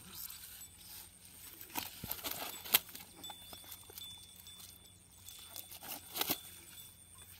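Rustling and scattered taps from a nylon mesh net holding live rohu being gathered up and lifted, with one sharp click a little under three seconds in and a short run of knocks about six seconds in.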